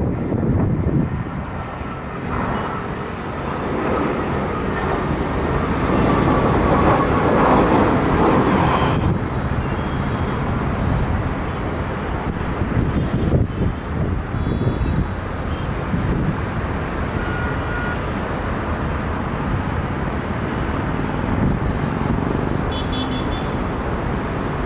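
Steady vehicle noise without a clear pitch, swelling a little for a few seconds.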